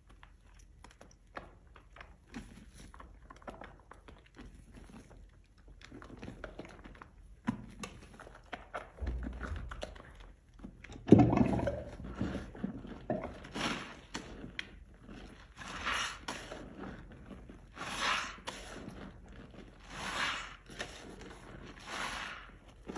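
Soaked, mushy soap being scraped and squished, with soft wet crackling and scuffs. There is a loud knock about halfway through, then scrapes repeating about every two seconds.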